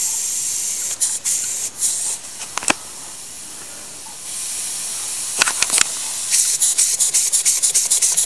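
A homemade model slide-valve engine hissing as its supply is turned on, with a few clicks and knocks as it is turned over a tight spot. The hiss grows louder about four seconds in, and from about six seconds it starts running with a fast, even train of exhaust beats.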